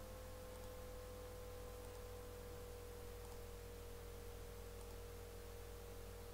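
Faint steady electrical hum with a held mid-pitched tone that sags very slightly, over an even hiss: the background noise of a recording with no other sound.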